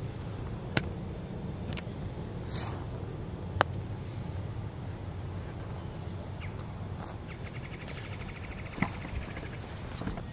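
A golf club clicking against the ball on a short chip shot about a second in, with two more sharp clicks later, the loudest about three and a half seconds in. Under it runs a steady high insect drone.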